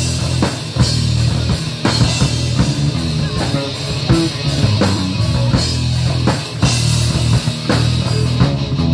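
Live rock band playing through a PA: a drum kit keeping a steady beat under electric guitars.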